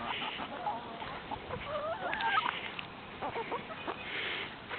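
Flock of chickens clucking, with scattered short calls from several birds.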